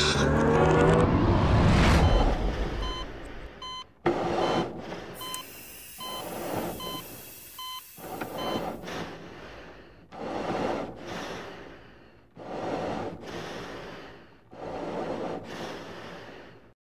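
A music swell ends about two seconds in. Then a medical monitor beeps, and slow breaths come about every two seconds. The beeps stop about eight seconds in, while the breaths go on and grow fainter until the sound cuts off.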